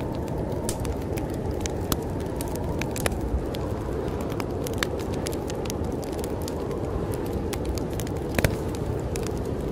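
A wood fire crackling, with irregular sharp snaps and one louder pop near the end, over the steady low rush of snowstorm wind.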